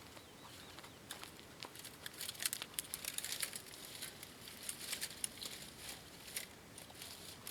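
Dry twigs and kindling crackling and rustling: light, irregular ticks and crackles, busiest from about two to three and a half seconds in.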